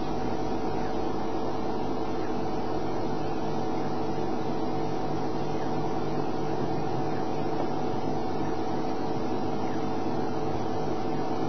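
A steady machine-like hum with several held tones, unchanging throughout.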